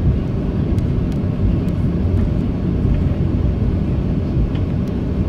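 Cabin noise inside a Boeing 737-700 taxiing onto the runway: a steady low rumble from its CFM56-7 jet engines and the wheels rolling over the pavement, with a few faint ticks.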